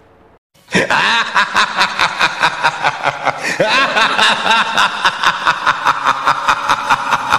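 Loud, continuous laughter beginning about a second in, its pulses running at about four a second.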